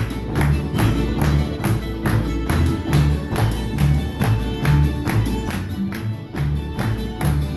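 Old-time string band playing an up-tempo tune: fiddle and strummed strings over a bouncing low bass line, with a steady, driving beat.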